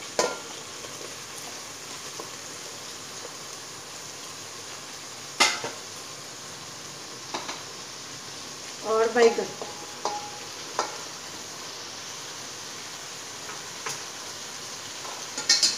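Vegetables frying in oil in an aluminium pot: a steady low sizzle, with a few sharp knocks, the loudest about five seconds in.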